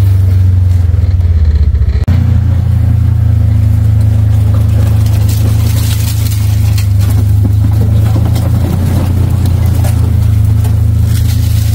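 A vehicle engine running steadily with a low drone while driving slowly over rough ground, with light rattling and rustling; the engine note dips briefly about two seconds in and then resumes.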